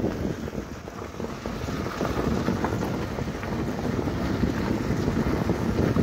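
Wind buffeting the microphone: a low, fluttering rumble that eases about a second in and then builds again.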